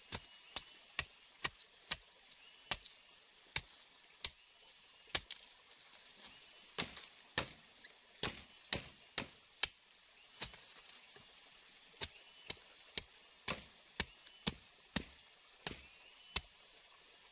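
Machete chopping a wooden pole: sharp blows, about one to two a second, in irregular runs with short pauses between.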